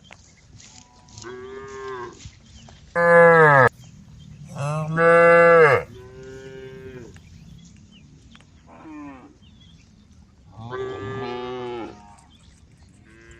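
Cows mooing, one call after another: about seven moos, the two loudest about three and five seconds in, with shorter, fainter moos between and after them.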